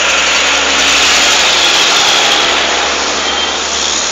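A lorry's engine and road noise passing close by, swelling to its loudest about a second in and then easing a little.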